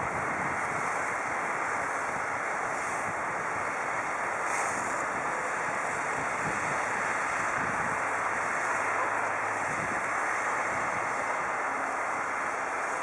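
Steady rushing background noise with no distinct events. A faint low hum comes in for about two seconds past the middle.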